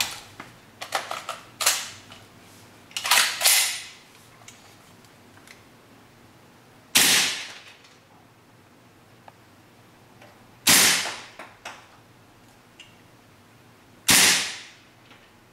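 Gas blowback airsoft pistol on green gas fired three times, about three and a half seconds apart, each shot a sharp report with a short fading tail. Lighter clicks and knocks of the gun being handled come in the first few seconds.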